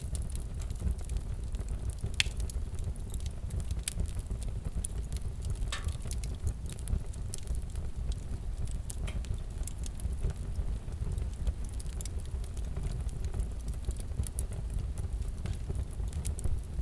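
Wood fire crackling: a steady low rumble of flames with scattered sharp pops and snaps.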